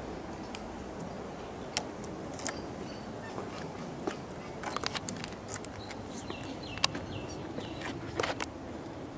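Scattered clicks and light knocks from a roof-mounted snowboard carrier's clamp being handled, over steady outdoor background noise. A short run of high chirps comes a little past the middle.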